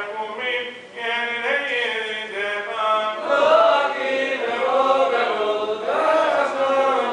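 Men chanting Sephardic Selichot penitential prayers in Hebrew, a melodic liturgical chant that pauses briefly about a second in.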